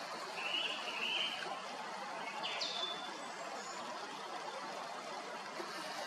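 Song thrush singing over the steady rush of a spring forest stream: a short doubled phrase in the first second, then a sharp high note about two and a half seconds in.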